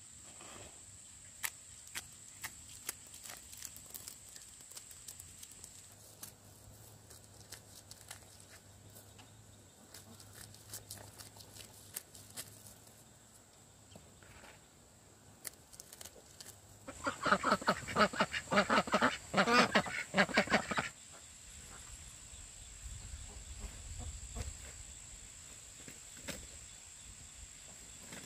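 Ducks quacking in a loud, rapid run of calls lasting about four seconds, starting a little past the middle, with scattered small clicks and knocks before it.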